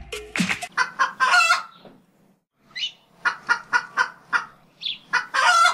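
Music stops about half a second in, then a chicken clucks: a run of short clucks, about four or five a second, ending in one longer, louder call near the end.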